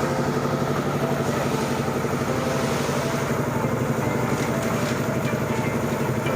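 A machine engine running steadily at a constant speed, with a fast, even throb, such as the mixer or other powered equipment used for pouring concrete.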